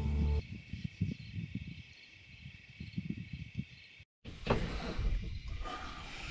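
Steady high chirring of night insects, typical of crickets, with irregular low crackle and thumps of camera handling. A music track stops at the very start, and the sound drops out completely for a moment about four seconds in.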